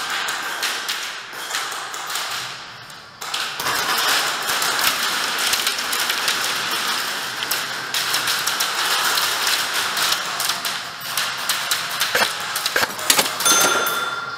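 Airsoft guns firing in rapid strings, a dense clatter of clicks and knocks echoing in a hard-walled hall, picking up sharply about three seconds in. A steady high tone comes in near the end.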